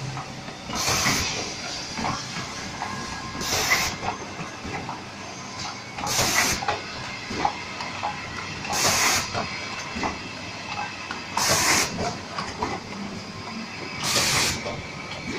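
Automatic capsule filling and sealing machine cycling: a sharp hiss of compressed air about every two and a half seconds, six in all, over steady mechanical running and light clicking.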